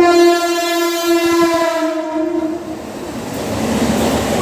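Mumbai suburban local electric train sounding one long, steady horn blast that starts suddenly and stops after about two and a half seconds. After it comes the rising rumble of the train running in beside the platform.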